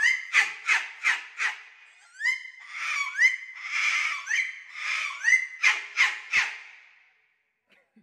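Umbrella cockatoo screeching in a rapid series of short, harsh calls, each rising in pitch, about two or three a second, breaking off about seven seconds in.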